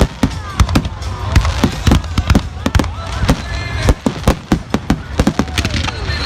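Fireworks display: rapid, irregular bangs and crackles of shells bursting, several a second, with gliding whistle tones between them.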